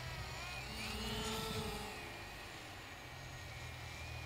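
A radio-controlled plane's motor and propeller whine overhead, rising and then falling in pitch in the first couple of seconds before fading, over a steady low hum.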